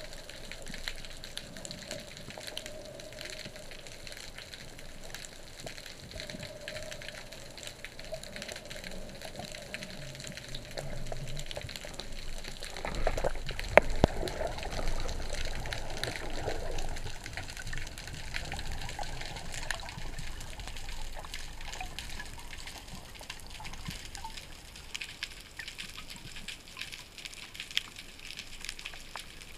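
Underwater ambience: a steady water hiss scattered with fine crackling ticks. About halfway through, a louder rush of water with a deep rumble and one sharp click.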